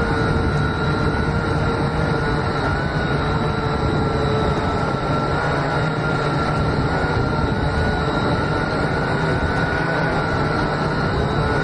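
Syma X8C quadcopter's motors and propellers running flat out at full throttle, a steady whine whose pitch wavers slightly, heard from the camera riding on the drone. The drone is straining to lift the added gimbal and camera.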